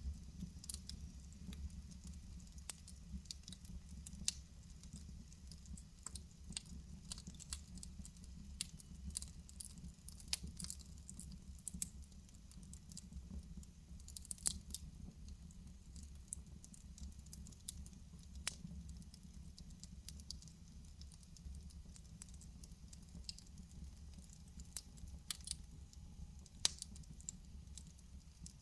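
Wood fire in a fireplace crackling: irregular sharp pops and ticks, a few louder snaps among them, over a steady low rumble of burning.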